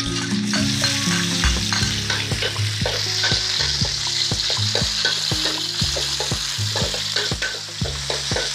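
Aromatics frying in hot oil in a pan, with a spatula stirring and scraping against the metal in quick, repeated strokes. The sizzle grows louder about three seconds in.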